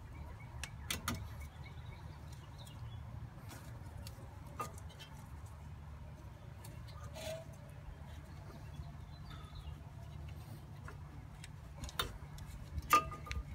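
Scattered sharp clicks and metallic clinks of hand tools working on a car's brake assembly, the loudest near the end. Under them runs a low rumble of cloth rubbing against the phone's microphone.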